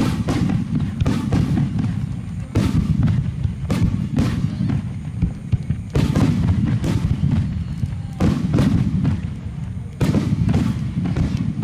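Aerial fireworks shells bursting in a dense barrage: sharp booms about one or two a second over a continuous deep rumble of echoing detonations.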